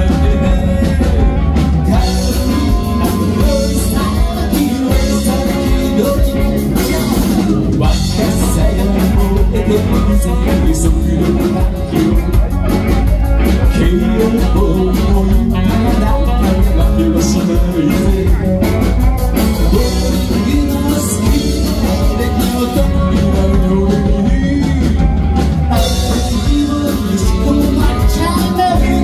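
Live rock band playing loudly: electric guitar, electric bass and drum kit, with a man singing into a microphone over them.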